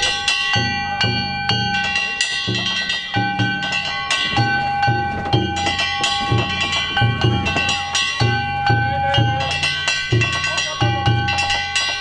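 Danjiri festival percussion (danjiri-bayashi): a large taiko drum beating a quick, steady rhythm while small hand gongs (kane) are struck again and again, their metallic ringing held over the drumming.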